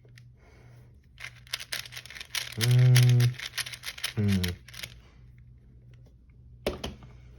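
Plastic 4x4 speed cube being turned, its layers clicking rapidly for a few seconds, with a couple of clicks again near the end. A person hums a drawn-out 'mmm' twice in the middle.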